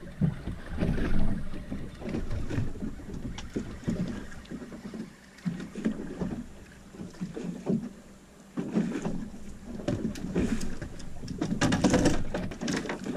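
Sea water slapping and lapping irregularly against the hull of a small fibreglass boat, with wind on the microphone and scattered knocks, louder about twelve seconds in.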